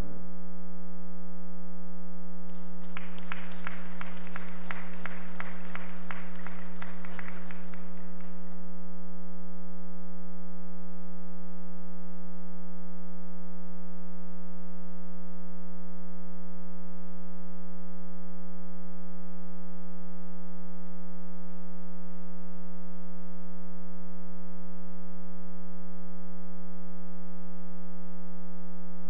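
Audience applauding for about six seconds, starting a few seconds in, after a piano piece. A steady hum runs underneath and goes on after the applause stops.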